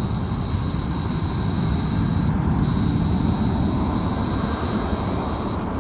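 Boeing 737-800 jet engines at taxi power: a steady low rumble with a thin, steady high whine above it.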